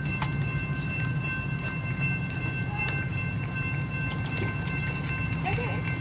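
Amtrak passenger train standing at the platform, giving a steady low hum with several steady high-pitched tones above it.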